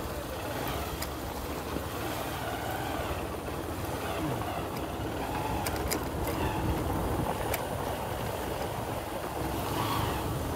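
Vehicle engine running with steady low road rumble while travelling along an unpaved dirt road, with a few sharp clicks and rattles.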